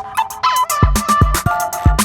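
Background music with an electronic beat: deep kick drums and sharp percussion under a melody.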